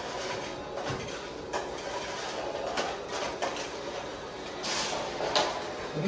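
Toy Dyson Ball upright vacuum cleaner with working suction, its small motor running with a steady whirring hiss as it is pushed over carpet, with a few light plastic clicks and rattles.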